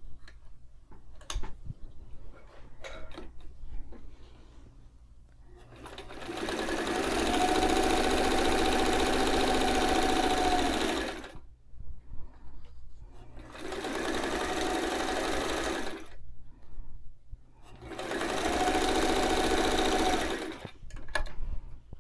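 White 173 sewing machine stitching a seam in three runs, the first about five seconds long and the others shorter, with short pauses between. Each run carries a steady motor whine, and a few light clicks of fabric handling come before the first.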